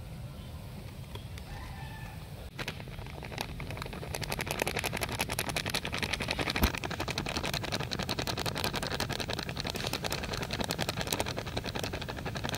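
Dry flour poured from a plastic bag into a ceramic bowl, the bag crinkling: a dense crackling rustle that grows louder a few seconds in, with a single sharp knock about halfway through.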